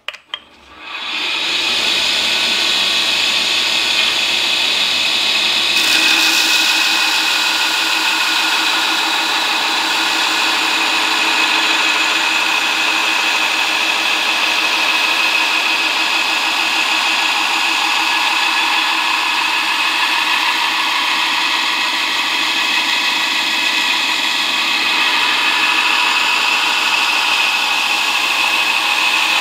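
A variable-speed belt grinder starts up in the first second and runs steadily while a steel knife blade is ground against the belt to cut the bevel, throwing sparks. The grinding noise gets louder and brighter about six seconds in and then holds steady.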